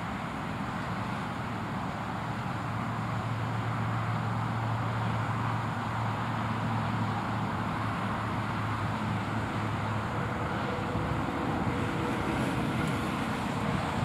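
Steady road-traffic noise, with a low engine hum that comes in about a second in and drops away near ten seconds.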